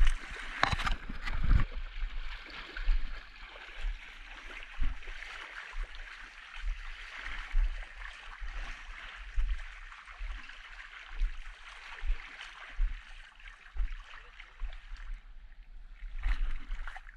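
Someone wading through shallow water: a steady swishing and splashing of water around the legs, with a dull thump at each stride, roughly once or twice a second. The swishing eases off near the end.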